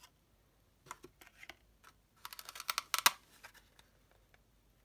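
Small craft scissors snipping through cardstock: a few separate snips, then a quick run of crisp, clicking cuts about two seconds in.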